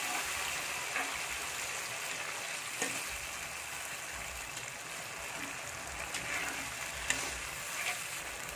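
Blended chili and shallot spice paste sizzling in hot oil in a wok, stirred with a metal slotted ladle that clicks against the pan a few times.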